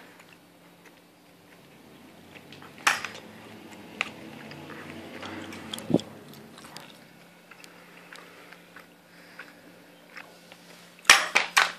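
Parts of a paintball marker being handled and fitted together: scattered clicks and knocks, with a quick cluster of sharper knocks near the end.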